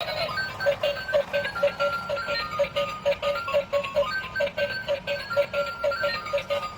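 Bright, bouncy music with an even pulse of short notes, about three or four a second, under a simple melody. It starts suddenly.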